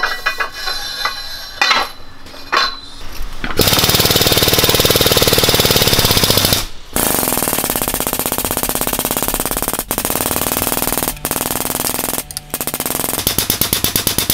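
Light metal clanks as the steel tube is seated in the bender die. Then a hydraulic pump driving a tube bender runs with a loud, rapid chattering pulse, bending the tube to 45 degrees. The pump stops briefly four times and ends with a few separate strokes.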